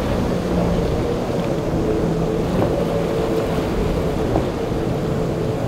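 Sea-Doo jet boat engine running steadily: a low drone with a higher held tone above it, over a rushing background of wind and water.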